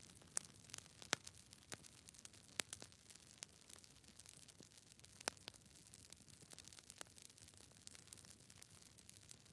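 Near silence with a faint hiss and scattered, irregular clicks and crackles, a few of them sharper.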